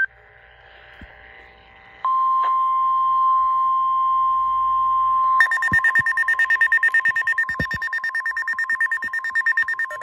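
Emergency alert on a weather radio: a steady 1050 Hz alert tone starts about two seconds in. A few seconds later a louder, higher beeping alarm joins it, pulsing rapidly, as the receiver signals a tornado watch.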